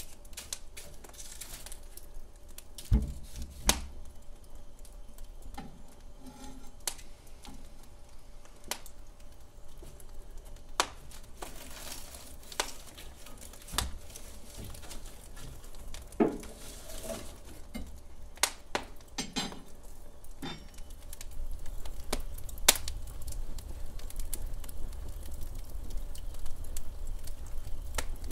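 Wood fire crackling: irregular sharp pops and snaps over a low rumble of the burning log, the rumble growing louder about two-thirds of the way through.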